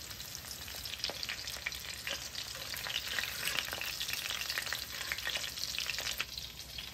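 Breaded fish fillets sizzling and crackling as they shallow-fry in hot oil in a cast-iron skillet. A few light clicks come from the fork and metal spatula as the pieces are moved.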